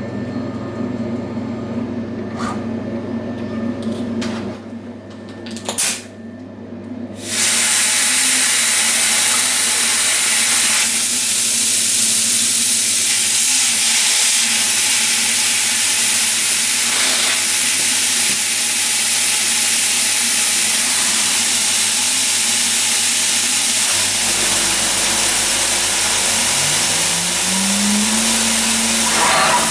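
CNC machine running: a low motor hum with a few clicks, then about seven seconds in a loud steady rushing noise starts and keeps on. Near the end a motor spins up, its hum rising in pitch and then holding steady.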